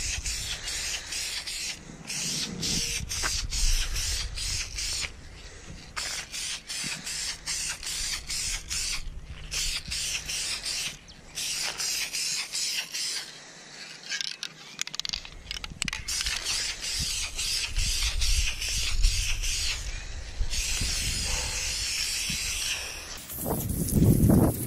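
Aerosol spray can of flat black vinyl and fabric dye hissing in many short passes, with brief breaks between them, as a coat is sprayed on.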